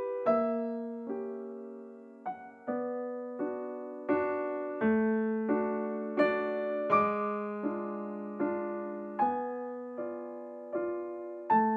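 Background music: a slow solo piano piece, single notes and chords struck about every three-quarters of a second, each ringing and fading before the next.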